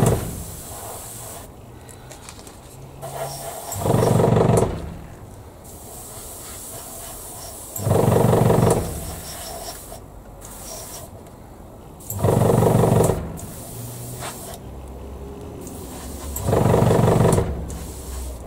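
Airbrush spraying paint in short passes, a high hiss that comes and goes. Over it, a loud low pitched sound about a second long recurs every four seconds or so.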